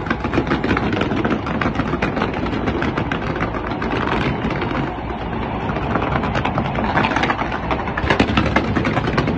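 Fireworks going off without a break: a dense stream of rapid cracks and pops over a continuous low rumble.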